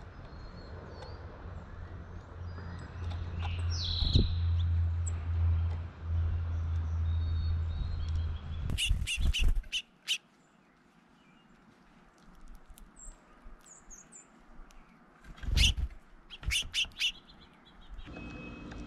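Small songbirds chirping, over a low steady rumble for about the first half. Groups of sharp knocks come about halfway through and again near the end.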